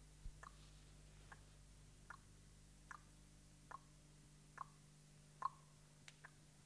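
Faint, slow clock ticking: single ticks evenly spaced about every 0.8 seconds, with a couple of softer extra clicks near the end.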